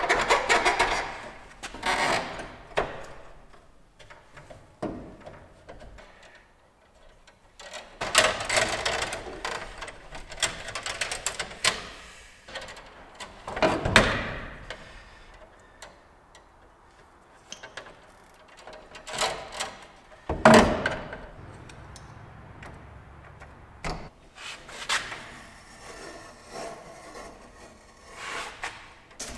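Hands working electrical cable into a metal breaker panel: bursts of rustling and scraping as the wire is pulled through, with scattered clicks and sharper knocks, separated by quieter gaps.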